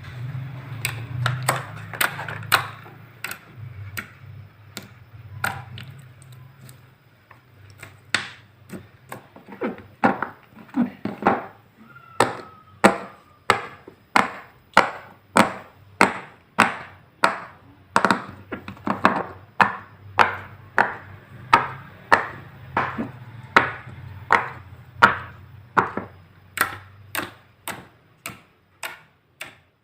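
Silicone pop-it fidget toy bubbles being pressed one after another, each giving a sharp pop. The pops come irregularly for the first several seconds, then settle into a steady run of about one and a half a second.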